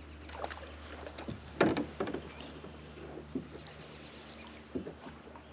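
A few knocks and bumps on a plastic kayak, the loudest about a second and a half in, with smaller ones after it.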